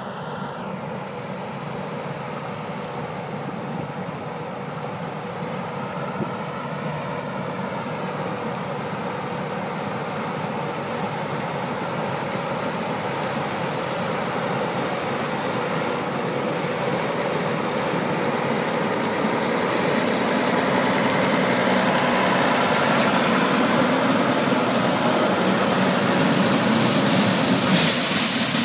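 Large harvest machinery engines running steadily, growing gradually louder throughout, with a brighter hissing rush near the end.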